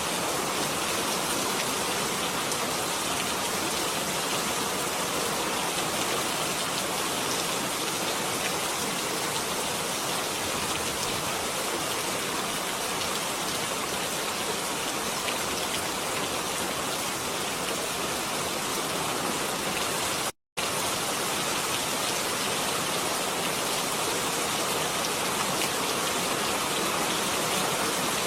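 Steady rain falling, an even hiss of many drops without thunder. It cuts out completely for a split second about two-thirds of the way through, then carries on unchanged.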